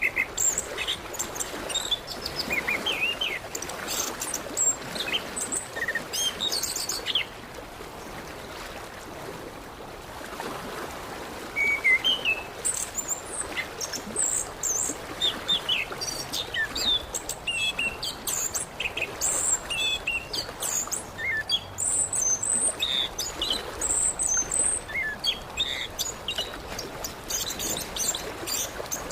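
Orange-headed thrush singing: a busy run of quick, varied whistled and chirping phrases, with a break of a few seconds about a third of the way in, over a steady background hiss.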